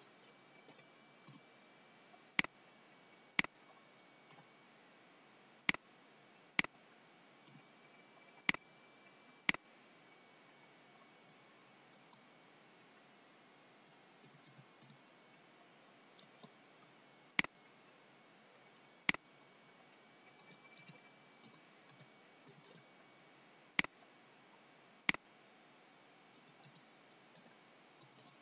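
Computer mouse button clicks, about ten sharp single clicks at irregular intervals, in two clusters and then a few more spread out, with a faint steady high-pitched tone in the background.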